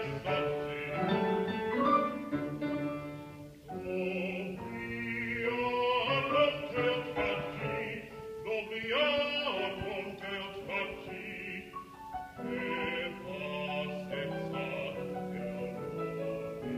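A male classical singer sings in operatic style with vibrato, accompanied by a grand piano.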